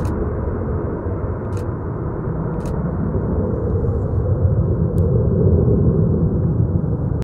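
F-35 fighter's single afterburning turbofan at full afterburner on takeoff and climb-out: a loud, steady, deep rumble, with a few brief sharp clicks.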